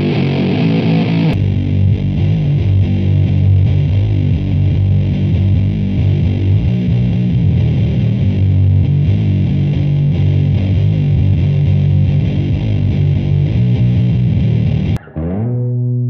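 Electric guitar through a Sabbathi boosted octave fuzz pedal (single-knob fuzz based on the Boss FZ-2 Hyper Fuzz). About a second and a half in, it cuts to an electric bass through the same fuzz, playing a thick, heavily distorted doom riff. Near the end it cuts to a guitar with the fuzz switched off, playing a much cleaner chord that is left ringing.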